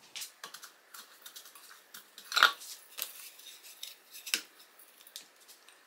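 Crushed peppercorns and fennel seeds crackling against a stainless steel bowl as a steak is pressed and turned in them, with scattered scratchy clicks and a couple of sharper knocks, the loudest about two and a half seconds in.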